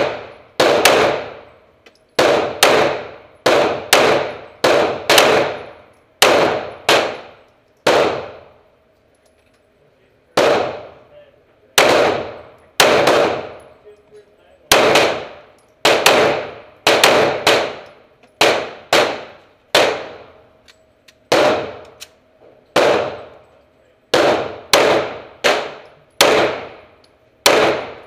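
9mm FN FNX-9 pistol firing about thirty shots in a steady string, each crack followed by a short echo in an indoor range. There is a pause of about two seconds roughly a third of the way through.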